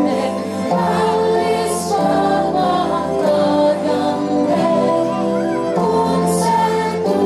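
A woman leading a group of children in singing a Finnish Christmas song, with instrumental accompaniment under the voices, the chords changing about once a second.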